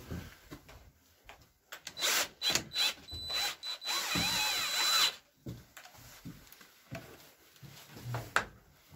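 Cordless drill driving into a PVC window frame as it is fixed into the wall opening: a few short bursts about two seconds in, then a steady run of about a second in the middle. Lighter knocks on the frame follow, with one sharp knock near the end.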